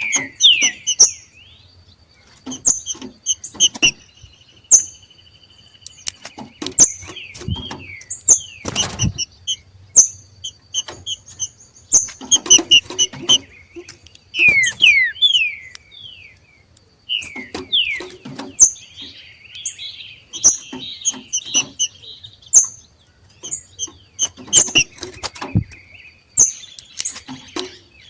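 Two green-winged saltators (trinca-ferros) giving their 'macheado' calls, the calls of birds coming into breeding condition: short high chirps and quick downslurred notes, a brief jumbled warble near the middle, and many sharp clicks between them.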